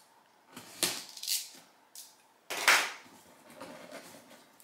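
A small knife slicing through the packing tape and cardboard of a box, heard as a few short scraping strokes; the longest and loudest comes a little past halfway, followed by softer cardboard rustling.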